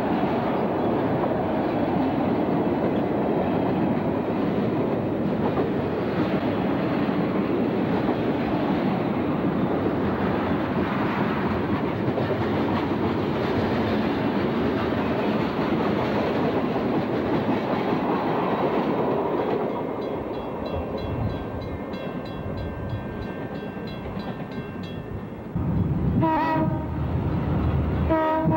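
Freight train rolling past, a steady rumble and rattle of freight cars on the rails. It quietens for a few seconds, then near the end a diesel locomotive comes in close with its horn sounding.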